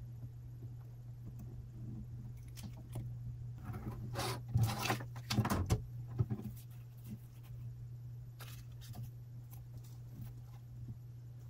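Paper shield template being handled and shifted across a painted wooden chest lid: a short stretch of paper rustling and light knocks about four to six seconds in, with a few faint clicks later, over a steady low hum.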